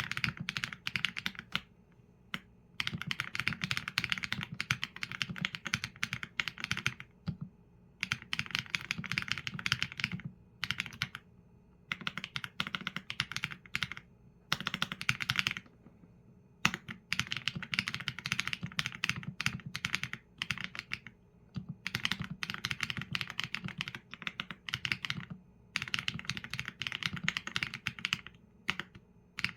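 Typing on a Qsenn A75 mechanical keyboard with Leobog Graywood V4 linear switches and PBT keycaps: fast runs of keystroke clacks, each lasting a few seconds, with brief pauses between them.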